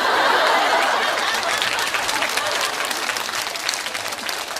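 A burst of applause, dense clapping that starts suddenly, loudest at first and slowly fading.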